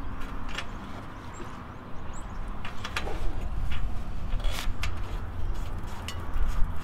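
Single-cylinder engine of an old Troy-Bilt Pony rototiller running roughly at low speed, its pitch wandering, with sharp clicks over it. It is barely keeping going; the owner takes it to be still not pulling fuel through the carburettor.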